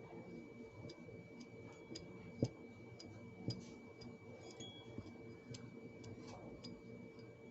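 Scattered faint, irregular clicks of small hard objects being handled, with two sharper light knocks about two and a half and three and a half seconds in.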